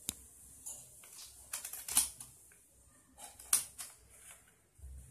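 Scissors cutting folded craft paper: a run of crisp snips and paper rustles, loudest about two seconds in and again at about three and a half seconds. A dull low bump near the end.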